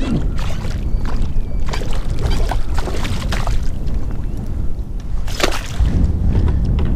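Steady wind rumble buffeting the microphone on a kayak, with a scattering of short clicks and splashes of water. The loudest of these comes about five and a half seconds in.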